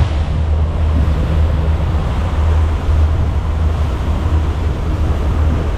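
Twin outboard engines running steadily as the boat cruises at speed, a continuous low hum mixed with wind and rushing water.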